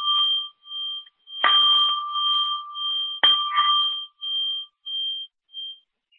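Meditation bell struck twice, about two seconds apart, ringing the close of the meditation. Each strike rings on in a clear tone that wavers and pulses as it fades, dying away shortly before the end.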